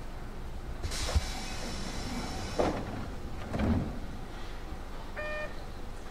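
Keio 7000 series train doors closing: a hiss of air begins about a second in, followed by a sharp knock and then two dull knocks. A short beep sounds near the end.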